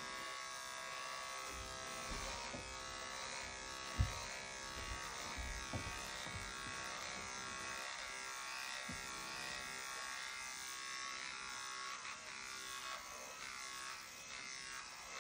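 Small handheld electric pet trimmer buzzing steadily as it clips a dog's fur, with a single sharp tap about four seconds in.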